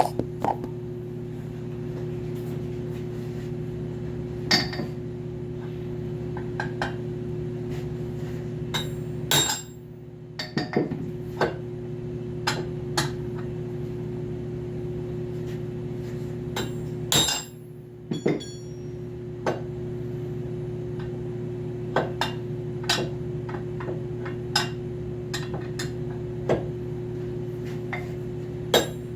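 Irregular sharp metallic taps and clinks of tools worked against a treadmill roller's shaft and bearing to get the bearing off, a second or two apart. A steady low hum runs underneath and drops out briefly twice.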